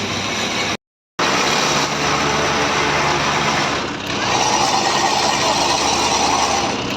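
Diesel tow truck running with steady engine and road noise, broken by a brief silent gap about a second in.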